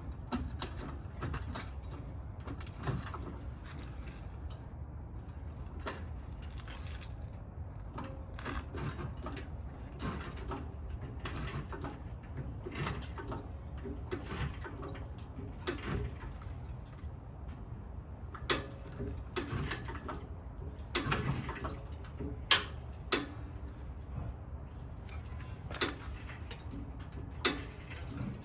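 Vehicle jack being worked to lift a pickup truck: a long series of irregular metallic clicks and knocks over a low steady hum.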